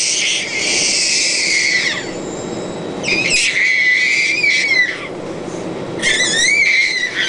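A baby squealing in long, high-pitched cries, three of them about two seconds each with short gaps between, the pitch wavering up and down, over a steady low rumble.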